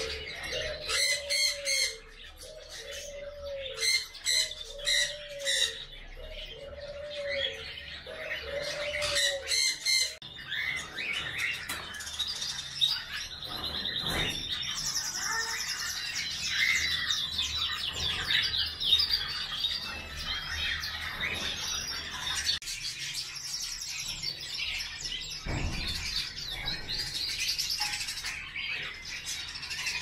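Alexandrine parakeet calling. For the first ten seconds it gives a string of short, low, evenly spaced calls, broken by quick runs of high chirps. After that comes a long stretch of continuous high chattering and chirping.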